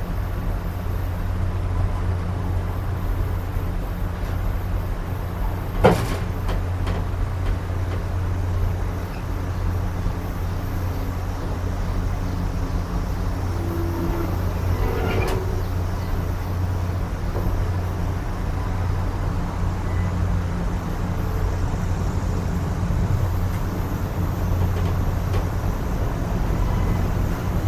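Railroad passenger coach rolling along the track, heard from its open vestibule: a steady low rumble of wheels and running gear. One sharp metallic clank about six seconds in, and a brief squeal about halfway through.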